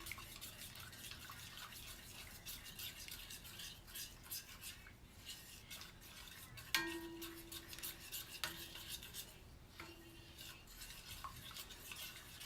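A spoon stirring and scraping through buffalo sauce (melted butter and Frank's hot sauce) in a pan, with light clinks. About seven seconds in, the spoon knocks against the pan, which rings briefly, and it rings twice more, fainter, over the next few seconds.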